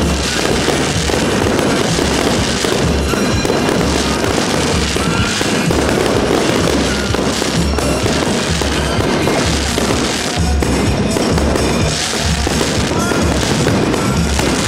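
Fireworks display: ground fountains and aerial shells going off, with many sharp bursts and pops, over loud music with a steady beat.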